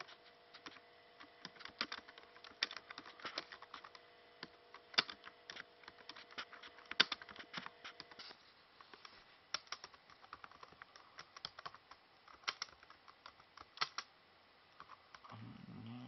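Laptop keys and touchpad buttons being typed and clicked in irregular spurts. A faint steady hum stops about halfway through.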